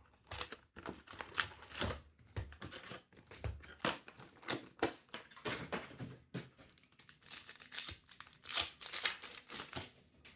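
Plastic wrapping on trading card boxes and packs being torn open and crinkled, a dense run of irregular crackles and rips.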